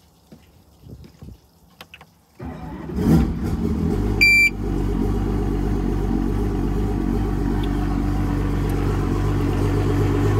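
200 hp Evinrude two-stroke outboard started with the ignition key: a few faint clicks, then the engine cranks and catches on the first turn about two and a half seconds in, with a short beep about a second later, and settles into a steady idle.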